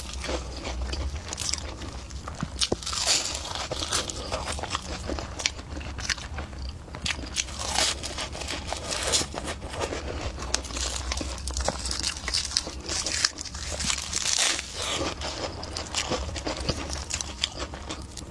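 Close-miked eating: crunchy bites and chewing in an irregular run of crisp crackles and clicks, over a steady low hum.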